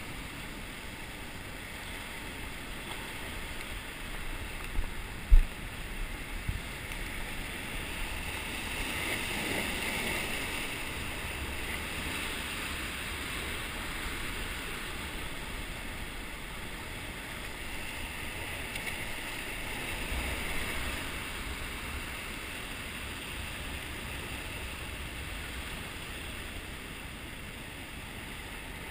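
Sea surf washing over rocks, a steady rush of water that swells a little now and then, with a brief low thump about five seconds in.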